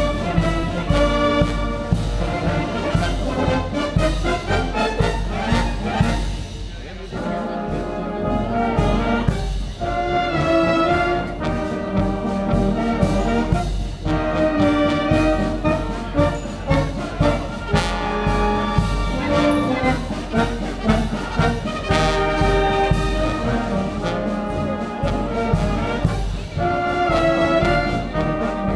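Wind band of brass, saxophones and flutes playing a piece together, the melody over a low bass line and a steady beat.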